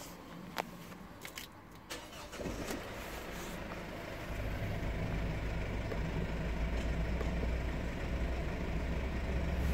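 A few clicks, then the Mercedes Viano's diesel engine starts about two seconds in and settles into a steady idle, heard from inside the cabin.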